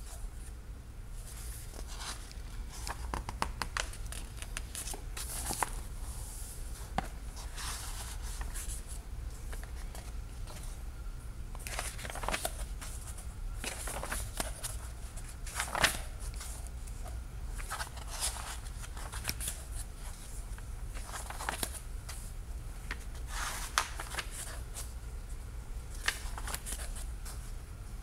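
Book pages being handled and turned, with irregular paper rustles and swishes, over a steady low hum.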